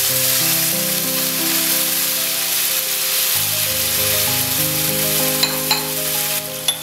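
Shrimp curry sizzling in a hot pan as coconut milk is poured in, a steady frying hiss under background music of slow held notes. Two light clicks come near the end.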